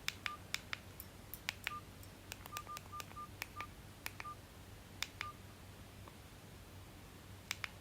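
Mini flip phone keypad being pressed: about nine short key beeps, all at the same pitch, each with a small click of the key, in an irregular run, several in quick succession a few seconds in, with a few silent key clicks between them. Faint.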